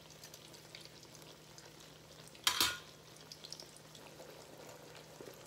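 Naan coated in pakora batter frying in shallow oil in a nonstick pan: a faint, steady crackle of small pops over a low hum. About two and a half seconds in comes one brief loud clatter.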